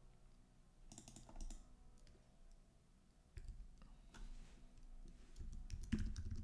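A few faint clicks, then from about three and a half seconds in a run of quick keystrokes on a computer keyboard.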